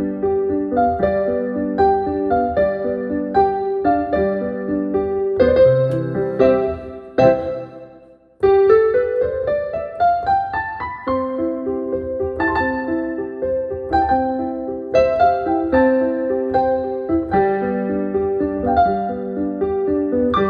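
Digital piano played by hand: flowing broken-chord patterns in the middle register. The playing fades away just after eight seconds in, then starts again with a rising run of notes before the broken chords return.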